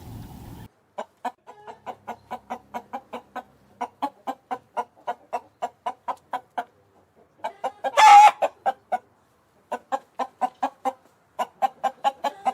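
Chicken clucking in quick runs of short clucks, about four or five a second, with one louder, harsher squawk about eight seconds in.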